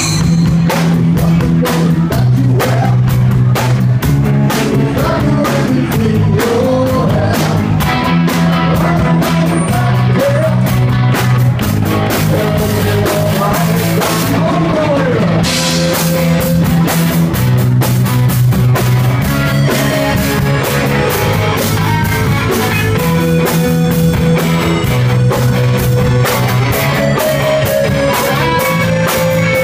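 Live rock band playing: electric bass, electric guitar, keyboard and drum kit, with a man singing into a microphone. The bass line holds each note and shifts about every two seconds under a steady drum beat.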